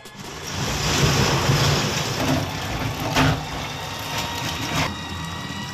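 Car running, its engine and road noise swelling over the first second and then holding, with a couple of sharp knocks about three and five seconds in.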